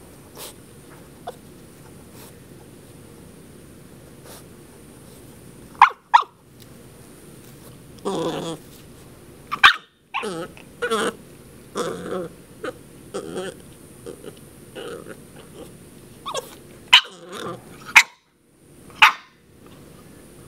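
Ten-week-old Shar Pei puppy barking and growling in scattered short bursts, starting about six seconds in, with one longer drawn-out call about eight seconds in.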